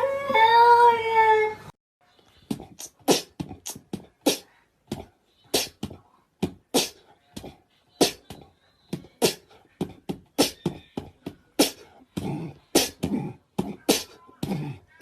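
A cat meowing in a long, bending call that cuts off suddenly about a second and a half in. It is followed by an irregular run of sharp clicks and smacks, two to three a second.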